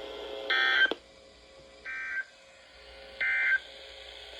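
Emergency Alert System end-of-message signal: three short bursts of SAME data tones, each about a third of a second long and about a second apart, over faint radio static with a steady low tone.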